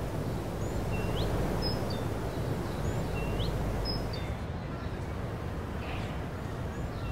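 Steady outdoor background noise with a bird calling faintly: a short rising chirp repeated about every two seconds, with a few higher chirps between.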